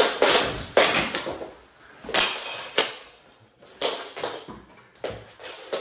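Mini hockey sticks and a small puck clacking on a wooden floor in a scramble: a string of irregular sharp knocks and slaps, with players thudding onto the floor.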